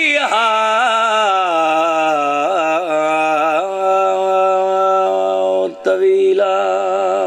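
A man chanting a devotional recitation into a microphone in a long melodic style, holding wavering, ornamented notes. The voice breaks off briefly about six seconds in, then resumes.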